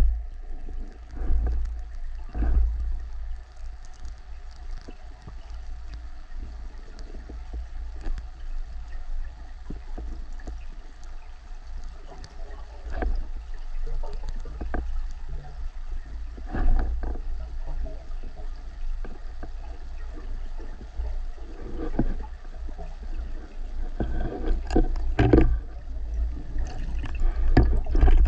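Underwater sound picked up by a camera in a waterproof housing during a breath-hold spearfishing dive: a constant muffled low rumble of moving water, with scattered clicks and knocks that come thicker and louder near the end.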